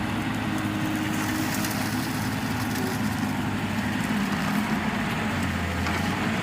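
Steady engine hum, like a machine idling, holding an even level throughout.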